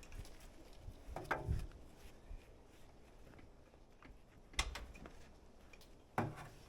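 Three separate knocks, the first about a second in, the others near the middle and near the end, the first and last ringing briefly.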